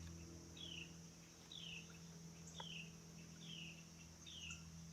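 A bird repeats a short down-slurred call about once a second over a steady high-pitched drone of insects.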